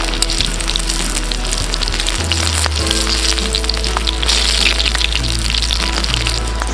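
Chicken feet sizzling on a barbecue grill: a steady frying hiss with many small crackles, over background music with sustained bass notes.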